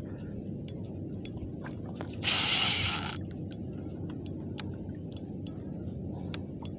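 Iroly Sephia 4000 spinning reel being cranked to retrieve line, its gears ticking faintly over a steady low rumble. About two seconds in, a loud rushing hiss lasts about a second.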